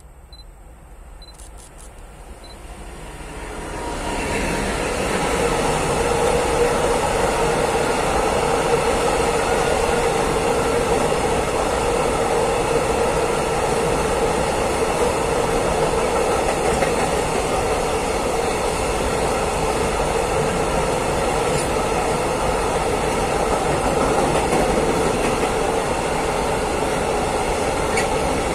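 Freightliner Class 66 diesel locomotive (EMD two-stroke V12) approaching and passing, growing louder over the first four seconds. A long train of open coal wagons then rolls past with steady wheel-and-rail noise.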